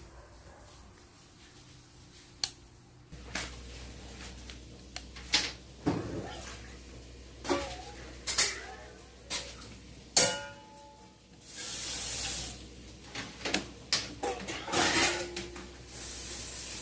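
Household background noise: scattered clinks and knocks, like dishes being handled, with a hissing rush for about a second partway through.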